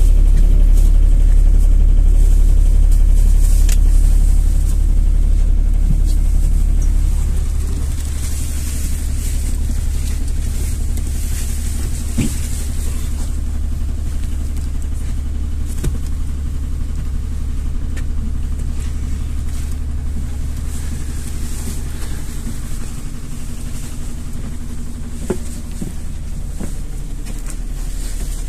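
NefAZ city bus on the move, heard from inside: a steady low engine and road rumble, louder for the first seven seconds or so and then easing off, with a few short rattles now and then.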